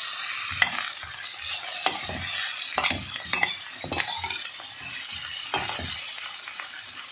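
Sliced carrots and onions sizzling in a metal frying pan, stirred with a slotted metal spatula that scrapes and clicks against the pan every half second or so; the stirring strokes thin out about six seconds in while the sizzle goes on.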